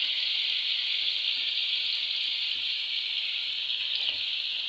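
Chicken steaks sizzling steadily in hot oil in a frying pan.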